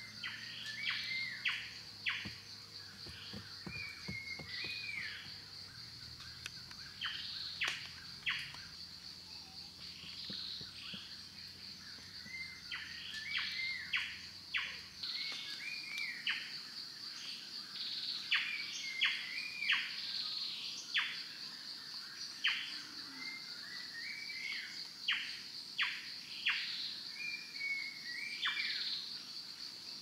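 Birds calling with many short, sharp whistled notes and some warbling phrases, repeated throughout, over a steady high-pitched drone of insects.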